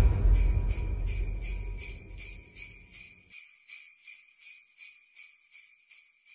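Jingle bells shaken in a steady rhythm, about three shakes a second, fading away. Under the first three seconds, the low rumble of a deep booming hit dies down and cuts off.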